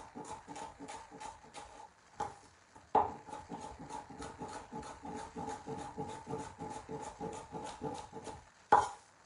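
Chef's knife slicing bell peppers into thin strips on a bamboo cutting board: quick, even knocks of the blade on the board, about four or five a second, with a short pause about two seconds in.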